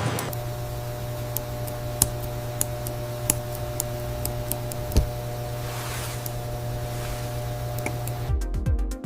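Steady low machine hum with faint higher tones, dotted with small sharp clicks and ticks, two of them louder about two and five seconds in. Near the end an electronic dance beat comes in.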